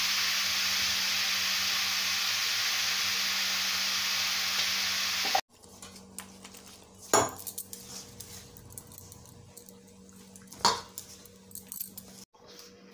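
Chopped vegetables sizzling in a steel wok on a gas stove, a steady hiss that cuts off abruptly about five seconds in. Then quieter sounds of flour being mixed in a steel bowl, with two sharp knocks against the bowl.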